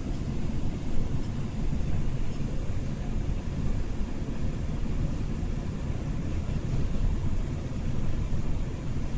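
New York City subway train running on an elevated track, heard from inside the car: a steady low rumble with no breaks.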